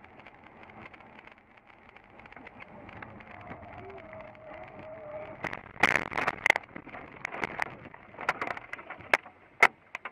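Car crashing off the road into woodland: steady road noise inside the cabin, then about halfway through a run of loud knocks and crashes as the car ploughs through trees and brush, branches striking the body and windshield, with two last sharp hits near the end.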